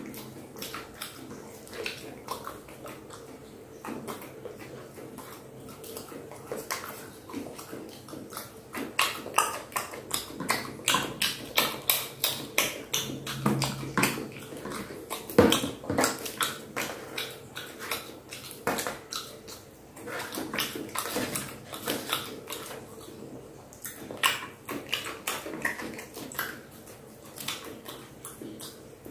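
Petai (stink bean) pods being split and peeled apart by hand: a long run of crisp snapping and crackling clicks, thickest through the middle of the stretch and again later on.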